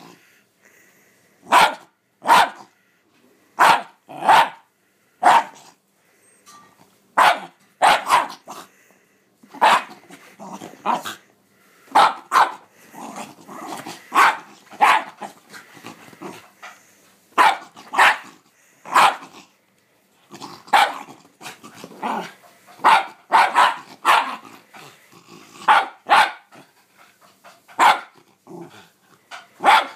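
A Shiba Inu barking in short, sharp barks, often two in quick succession, about thirty in all, with some growling between them: excited, hyper barking.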